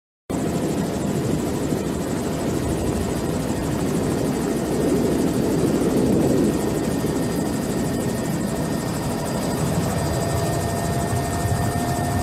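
Helicopter rotor and turbine running steadily, a dense low chop with a thin whine that grows stronger and rises slightly near the end.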